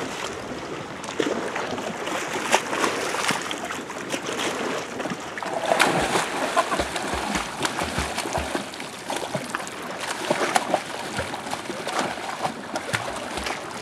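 An Irish Setter splashing in lake water, pouncing at it again and again with a run of sharp splashes; the biggest splash comes about six seconds in.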